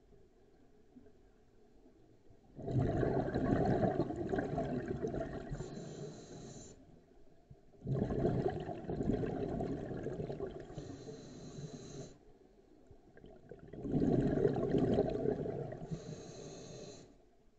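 Scuba regulator exhaust bubbles: three long exhalations about five to six seconds apart, each a loud bubbling rush lasting several seconds, with quieter pauses between them while the diver inhales.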